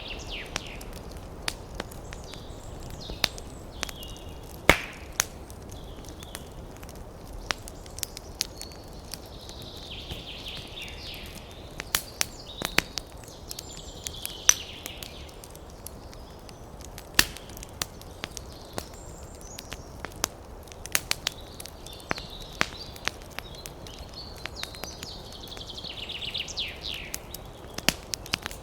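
Wood fire crackling, with irregular sharp pops and snaps, one louder pop about five seconds in. A soft high hiss swells and fades every few seconds.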